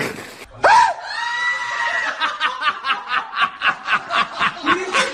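People laughing: a long drawn-out high note, then rapid snickering at about five short bursts a second.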